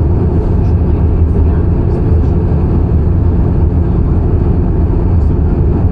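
Cabin noise of an Airbus A320-214: a steady low rumble of its CFM56 engines and the airflow past the fuselage, with a steady low hum underneath.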